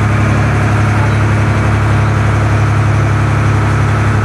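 Passenger boat's engine running steadily under way, a loud, constant low hum heard from on board.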